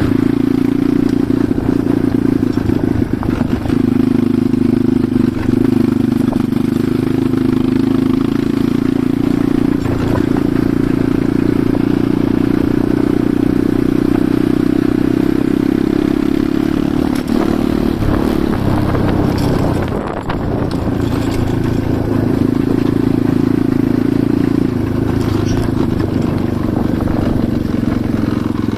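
Enduro dirt bike engine running steadily under way, easing off briefly a little past halfway and then pulling again.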